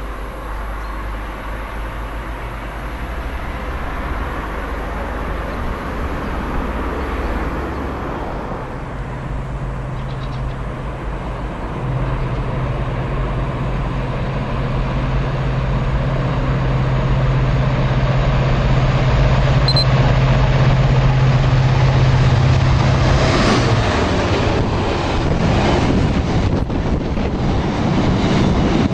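Passing trains on an electrified main line. A Class 350 electric multiple unit rumbles as it approaches. Then a freight locomotive's steady low hum grows louder, and near the end the rumble and clatter of container wagons' wheels on the rails sound close by.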